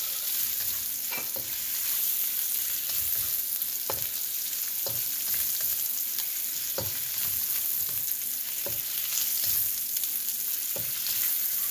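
Sliced sausage, fish cake and garlic sizzling in hot oil in a wok, with a spatula stirring and scraping them against the wok in short strokes every second or so.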